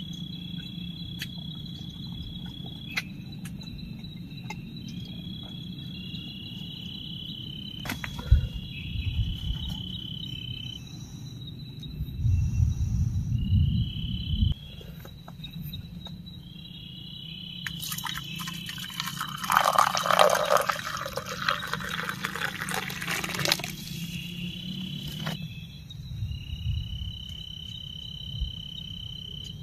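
Crickets chirping steadily in the background. About two-thirds of the way in, water is poured into a stainless steel mug over a tea bag for several seconds, splashing and filling.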